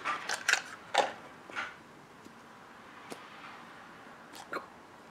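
A few short breathy mouth sounds, then faint small clicks from handling a lipstick tube.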